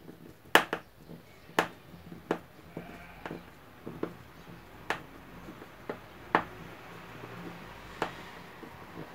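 Sharp, irregular clicks and taps, roughly one a second, of a screwdriver and fingers working against the plastic base and motor of an opened Moulinex blender.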